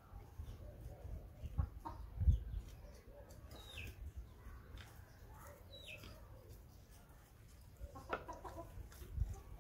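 Hands pulling a dried-out petunia and its roots out of a clay pot: faint rustling and a few dull bumps. Two short falling bird calls come through in the middle, and a sharper burst of sound comes near the end.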